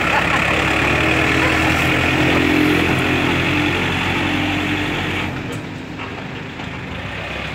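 Yanmar EF514 tractor's diesel engine running steadily as the tractor works loose dirt with a disc harrow. Its note rises slightly a couple of seconds in, and the sound drops a little in loudness about five seconds in.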